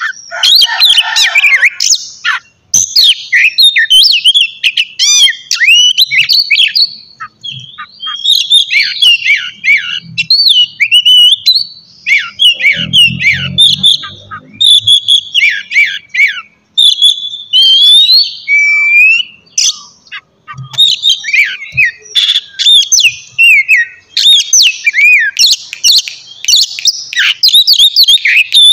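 Oriental magpie-robin (kacer) singing a loud, continuous, varied song of rapid whistled glides and chattering phrases. A brief low rumble comes in about halfway through.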